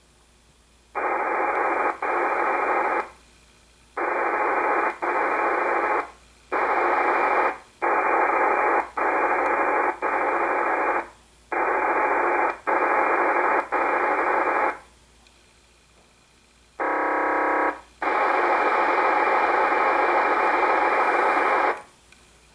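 Icom IC-R8500 scanning receiver's speaker giving a run of harsh, hissing bursts of about a second each as the squelch opens and closes on busy VHF FM channels, mostly digital signals heard as noise. Near the end comes one buzzier burst with a distinct tone, then a longer burst of nearly four seconds.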